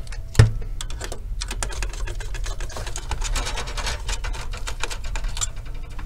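Gloved hands handling cables and parts inside an open desktop PC case: a sharp click about half a second in, then a quick run of small clicks and rustles that stops about a second before the end.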